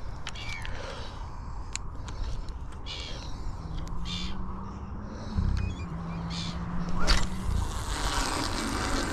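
A spod rod is cast: a sharp swish about seven seconds in, then braided line hisses off the reel spool as the loaded spod flies out. Birds call through the first half, over a steady low hum in the middle.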